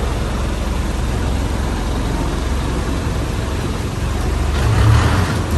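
Boat engine running steadily with rushing wind noise, a low continuous rumble that swells briefly near the end.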